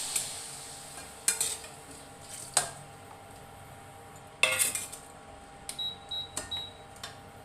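A spoon knocking and scraping against an iron kadhai as jaggery and water are stirred, in scattered sharp clinks with a cluster about four and a half seconds in. A sizzle from the hot pan dies away in the first second.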